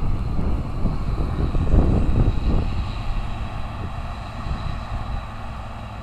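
Heavy farm machinery engine running steadily, with a thin high whine held throughout. Wind buffets the microphone in the first half, then eases.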